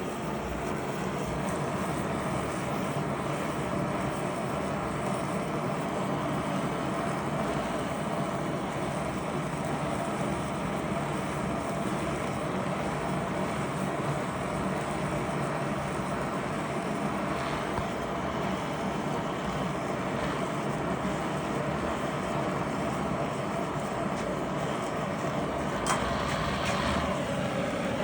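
Steady mechanical drone with a constant hum, and one sharp click near the end.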